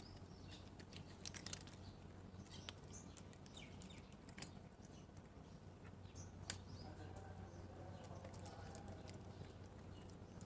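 A cat eating, with faint scattered chewing clicks and ticks. Faint bird chirping joins from about six seconds in.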